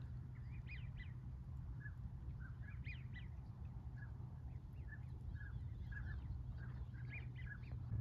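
Ducks calling again and again, many short whistled notes and chatters from several birds, over a steady low hum.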